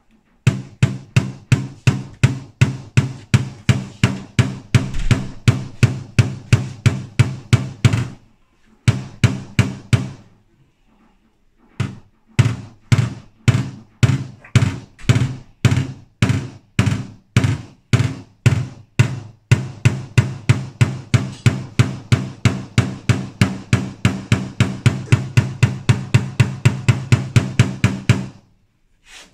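Paintless dent repair knockdown: a hammer tapping a white-tipped knockdown punch against the steel rear quarter panel of a Mitsubishi Pajero Sport, about three quick taps a second in long runs, with two short pauses about a third of the way in. The tapping levels the high spots left after pulling the dents with glue tabs.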